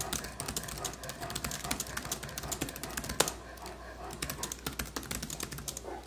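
Fast typing on a MacBook Air laptop keyboard: a quick, uneven run of light key clicks, with one louder key strike about three seconds in.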